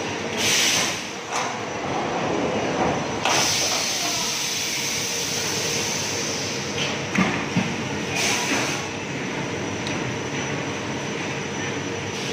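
High-frequency PVC welding machine running: a steady mechanical hum and hiss, with two short sharp bursts of hiss, one near the start and one about eight seconds in, and a couple of dull knocks between them.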